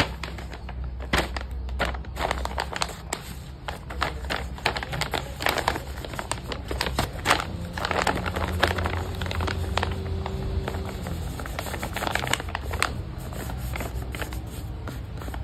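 Crinkling and rustling of a blind bag's packaging being handled and opened, in a dense run of small irregular crackles and clicks over a low steady hum.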